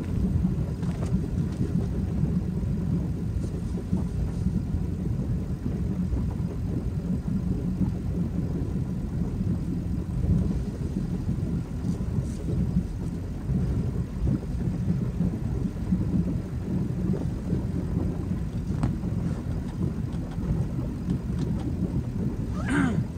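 Wake boat's engine idling, a steady low rumble.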